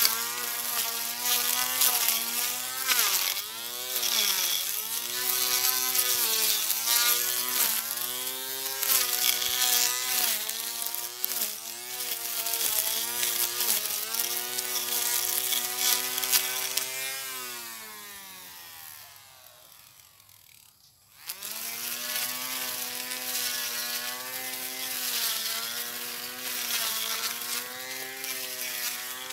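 Portable electric grass cutter running while cutting grass, its motor whine dipping and recovering in pitch. About 17 seconds in it winds down to a near stop, then starts up again sharply a few seconds later and runs on.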